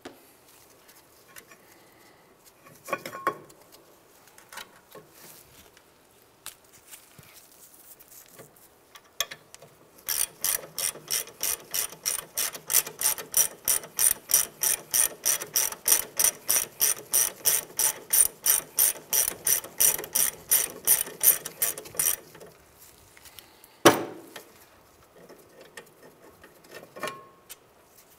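Hand ratchet clicking steadily, about four clicks a second for some twelve seconds, as it spins out a 14 mm brake caliper bracket bolt. A few scattered tool clicks come before it, and a single sharp metallic knock follows near the end.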